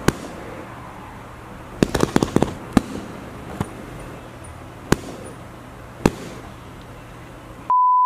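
Scattered sharp pops and cracks: one right at the start, a quick cluster of several about two seconds in, then single ones roughly once a second. Near the end a steady high beep begins.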